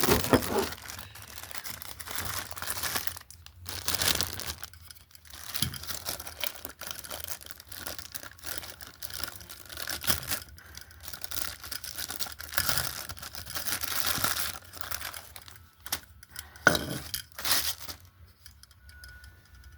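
Packaging being torn open and crinkled by hand while parts are unwrapped, in irregular rustling bursts that thin out near the end.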